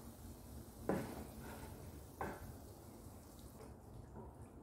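Wooden spatula scooping cooked greens and potatoes out of a non-stick pan into a bowl: two soft, wet scrapes, about a second in and just past two seconds, with a few fainter ones.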